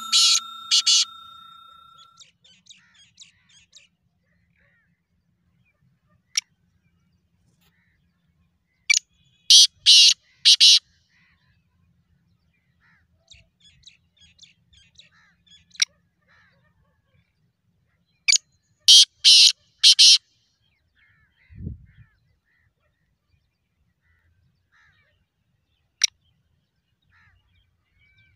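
Black francolin calling: two bursts of about four scratchy notes in quick succession, each burst lasting under two seconds, the second coming about eight seconds after the first.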